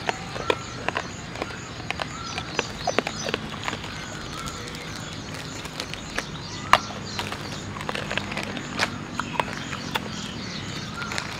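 Irregular small clicks and crinkles from sweet wrappers and the plastic sheet being handled, over steady background noise.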